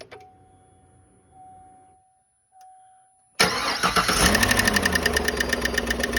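A click, then a faint steady tone for about three seconds, then the 2015 Chevy Silverado's 5.3 V8 starts abruptly about three and a half seconds in and runs loud with its rocker cover and coil packs off, the valvetrain clattering in a fast even rhythm. The engine is being run to confirm a tick from a cylinder-deactivation (DOD) lifter that moves too easily.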